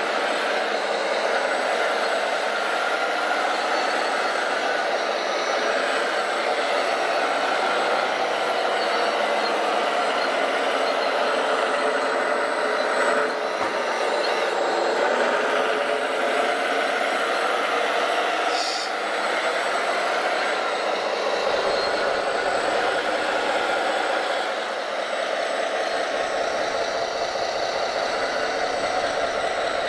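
Radio-controlled scale construction machines working: a steady machine noise with little deep bass, and a brief knock about thirteen seconds in.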